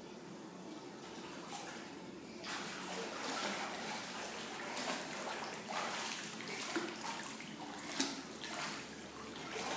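Pool water splashing from a child swimming backstroke, her arms and finned feet striking the water in irregular splashes. The first couple of seconds are softer, and the splashing picks up after that.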